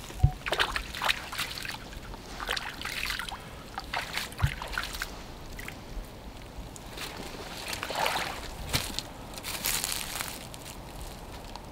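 Shallow creek water sloshing and splashing around rubber boots as a person wades at the water's edge, with a few soft thuds of boots stepping onto the bank.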